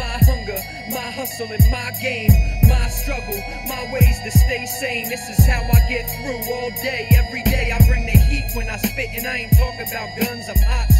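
Hip-hop track: rapping over a beat of deep kick drums that drop in pitch and steady, rapid hi-hats.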